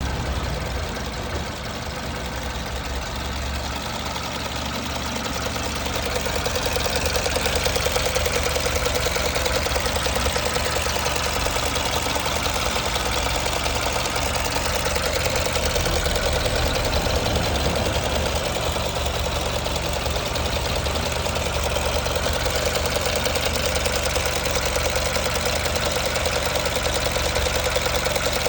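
Mercedes B200 (W245) petrol four-cylinder engine idling with a steady, rhythmic knocking from the engine area; no fault codes are stored, so the cause is unknown. The sound grows louder over the first six seconds or so, then holds steady.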